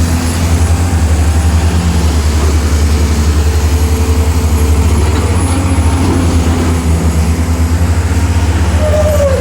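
Excavator diesel engines running with a steady, evenly pulsing low throb.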